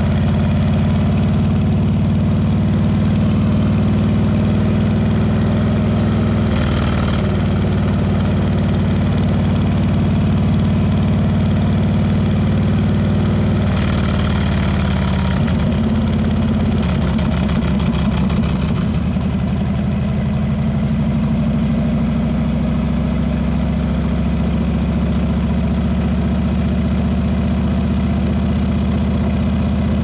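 Harley-Davidson Heritage Classic's Milwaukee-Eight 114 V-twin running through a Rinehart exhaust while the bike is ridden at a steady pace. The note shifts briefly about seven seconds in and goes uneven for a few seconds around the middle, then settles back to a steady run.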